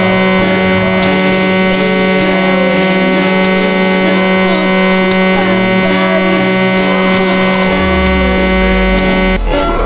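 A loud, steady electronic buzzing tone, held unchanged for about nine seconds, cuts off suddenly near the end. A deeper hum joins in for the last second or two.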